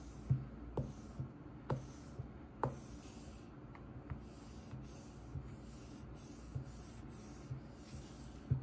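Soft, rhythmic rubbing of a screen-cleaner pad over a tablet's glass screen, with a few light clicks in the first three seconds.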